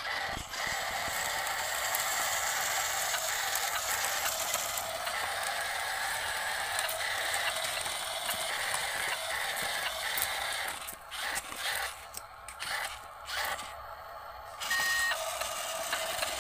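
Toy remote-control dump truck's small electric motor and gearbox whirring steadily as it drives over rough ground. It stops and starts several times in the last few seconds, then runs on again.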